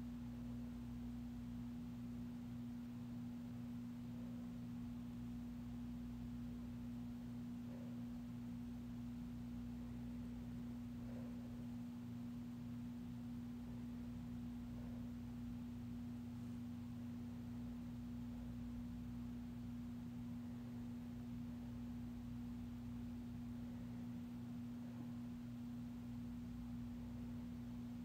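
A steady, faint hum: one even, unchanging tone with weaker lower hum beneath it.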